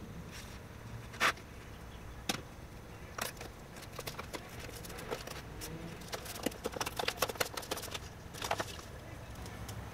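Scissors snipping through a cardboard template in short, irregular cuts. A few single clicks and taps come first, then a quick run of snips in the later part.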